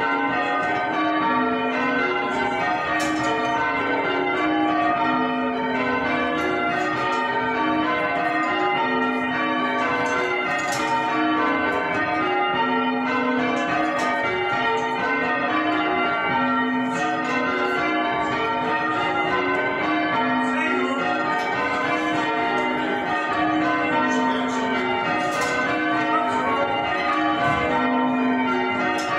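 A ring of six church bells rung full circle by hand, the bells striking one after another in a steady, continuous sequence of changes, heard from the ringing chamber below the bells. The ring was newly restored after more than a century out of use.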